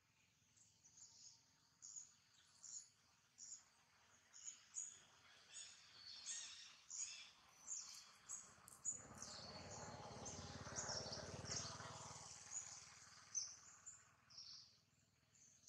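Small birds chirping faintly in short, high calls repeated throughout. A low rushing noise swells and fades for a few seconds in the middle.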